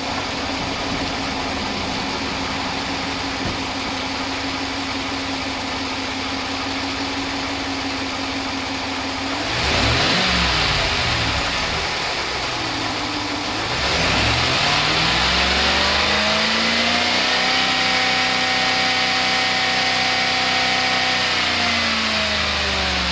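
Stock 5.7-litre Hemi V8 of a 2015 Ram 1500, warm, idling steadily, then revved twice: a short blip about ten seconds in, then a longer rev held for several seconds before dropping back to idle near the end. It is a healthy engine with no Hemi tick or lifter failure, by the owner's account.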